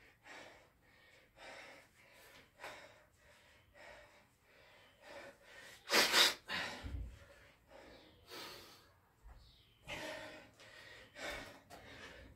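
A man breathing hard from exertion during burpees and kettlebell thrusters, short forceful breaths in and out about once a second, with one louder gasping exhale about six seconds in and a couple of dull low thumps after it.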